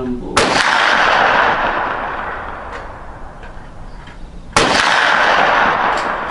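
Ruger PC Carbine 9mm firing two shots about four seconds apart, each a sharp crack followed by a long echoing decay. Fainter cracks are heard between the shots.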